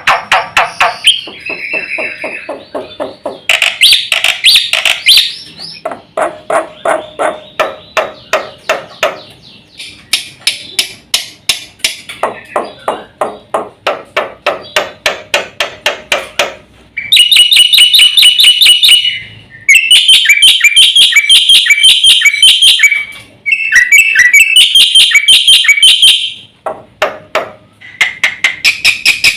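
Jalak putih (black-winged starling) singing a long, full song packed with mimicked calls. It starts with runs of rapid repeated notes, about four a second. From just past halfway it turns to louder, dense rattling trills broken by short pauses.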